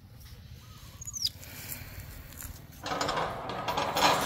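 A brief high squeak that falls in pitch about a second in. Then, from about three seconds, a scratchy rustling and rattling as a baby monkey clambers out of a potted plant and grabs a chain-link fence.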